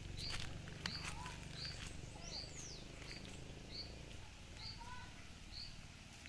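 Birds calling: one repeats a short high chirp about every three-quarters of a second, while others add a few lower call notes and one quick falling whistle about two and a half seconds in. A low steady rumble runs underneath.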